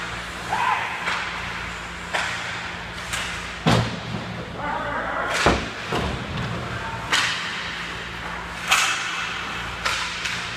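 Ice hockey play around the net: a series of sharp knocks and thuds from sticks, puck, skates and boards, about eight in ten seconds, the loudest two in the middle. A steady low arena hum runs underneath.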